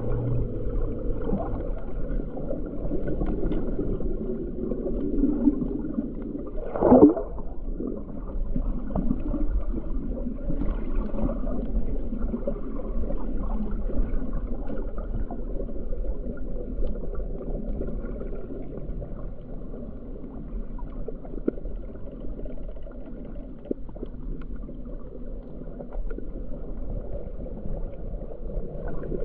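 Muffled underwater water noise picked up by a submerged camera, steady and dull, with one brief loud swish or knock about seven seconds in.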